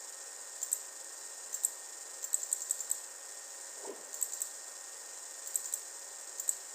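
Light, sharp clicks of a computer keyboard and mouse, scattered singly and in a quick run of keystrokes about two and a half seconds in, over a steady hiss.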